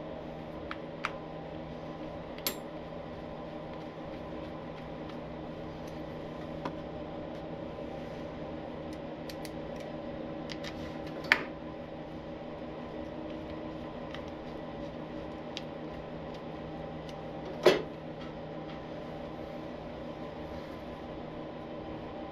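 Sparse metallic clicks and clinks of hand tools, screws and steel parts against a motorcycle's aluminium primary cover, the two loudest about 11 and 18 seconds in, the second ringing briefly. A steady mechanical hum runs underneath.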